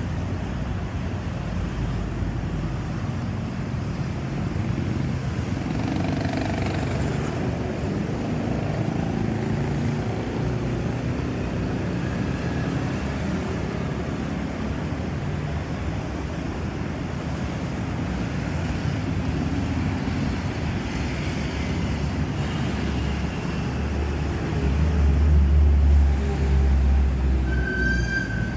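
Road traffic: steady vehicle engine and tyre noise, with no siren sounding. A heavy vehicle's low engine rumble swells louder about 25 seconds in, and a short high-pitched tone sounds near the end.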